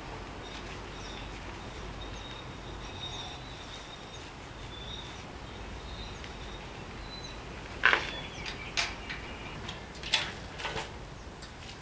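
Steady low background noise with faint high chirps, then a few sharp clicks and knocks from about eight seconds in as the top of a coil-over strut hung from a shop crane is handled.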